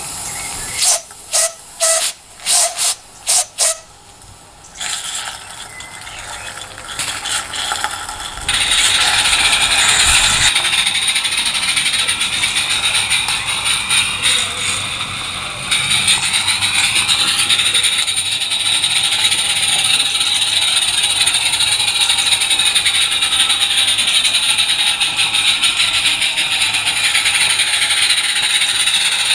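16mm-scale live-steam locomotive running on garden railway track: a steady, fast mechanical chatter of exhaust beats and motion that sets in about eight seconds in. Six short sharp bursts come in the first few seconds as it is set going.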